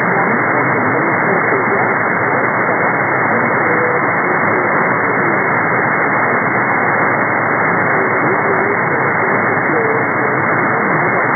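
Shortwave upper-sideband reception of the VCS Halifax Coast Guard marine weather broadcast on 2749 kHz: a loud, steady hiss of static, cut off above about 2 kHz by the receiver's filter, with a weak voice barely coming through underneath.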